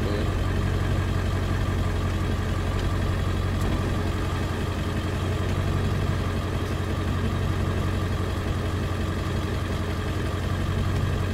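A vehicle engine idling steadily, a low even hum that holds the same pitch throughout.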